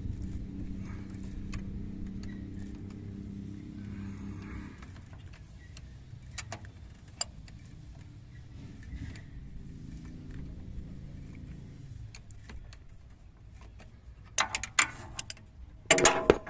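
Car engine running with a steady hum that drops in level about five seconds in and fades out after about twelve seconds. Scattered clicks run throughout, and two loud bursts of metallic clatter and jangling come near the end.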